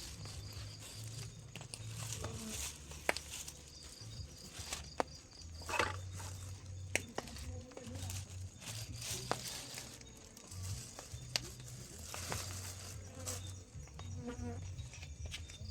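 Insects buzzing and trilling, with a low wavering hum and a faint high trill, broken by scattered sharp clicks and knocks.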